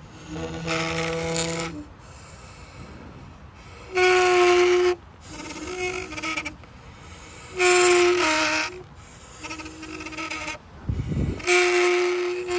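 Rotting cedar wood played as a giant daxophone-like friction instrument: a cedar slat rubbed against a decaying cedar log draws out a series of sustained pitched tones, each lasting about a second, some stepping down in pitch partway through. A low thump comes shortly before the last tone.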